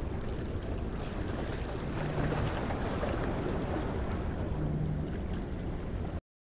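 Wind rushing over the microphone with the sea washing below, a steady noise that cuts off suddenly near the end.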